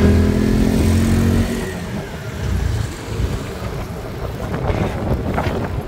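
Motorbike engine running as it rides along, with wind rumble. A steady engine hum is loudest in the first second and a half, then fades into a rough low rumble.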